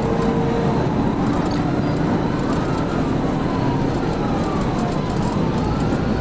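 Police siren wailing in slow rising and falling sweeps over steady road and engine noise from a cruiser at high speed.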